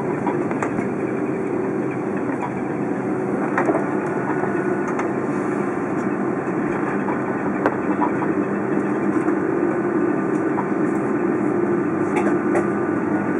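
Airbus A330 cabin noise while taxiing: a steady engine hum with a rush of air, and a few light clicks and rattles.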